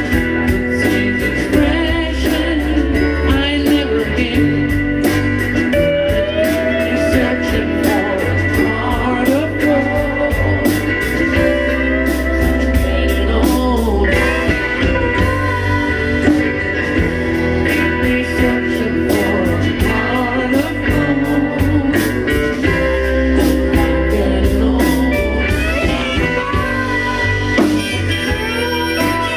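A live band plays a folk-rock song: strummed acoustic guitar, electric bass and drums, with a melody line on top.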